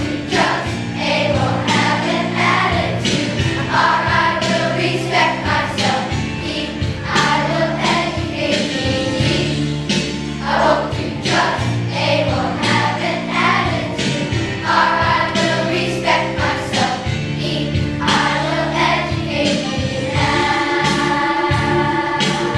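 Children's choir singing in unison over accompaniment with a steady beat and bass line.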